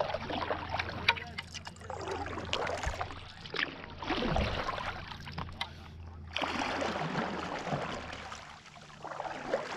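Stand-up paddleboard paddle dipping and pulling through lake water, splashing and trickling with each stroke, with sharp little splashes and knocks close to the board.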